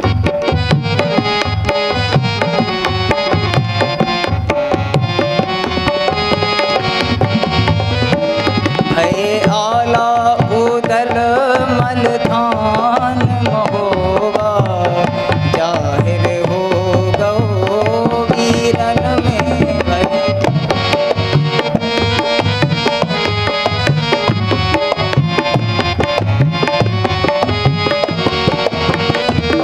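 Harmonium, tabla and dholak playing an instrumental passage of a Bundeli folk song. The drums keep a steady beat under the harmonium's melody, and a wavering melody line stands out over them for about ten seconds in the middle.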